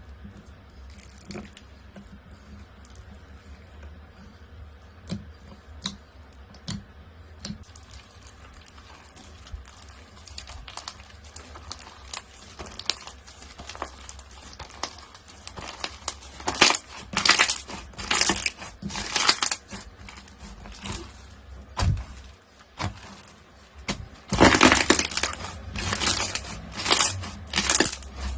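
Crunchy slime being handled, giving off crackling, crunching pops. At first there are a few faint scattered crackles, then they grow denser and louder from about halfway, with the loudest runs of crunching near the end.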